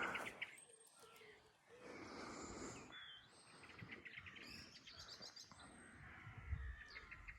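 Small birds chirping and twittering faintly, with short repeated chirps and a few whistled notes.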